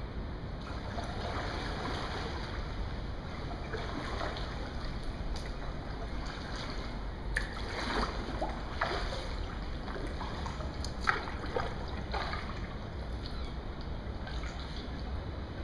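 Kayak paddle strokes in the water: gentle splashes and drips, with several sharper splashes and drips in the middle of the stretch, over a steady low background rumble.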